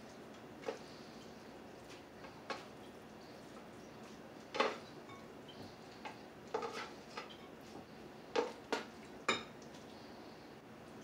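Kitchen tongs clinking and knocking against a frying pan while stir-fried noodles and tofu are lifted out and served: about ten separate short knocks, the loudest about halfway through and three close together near the end.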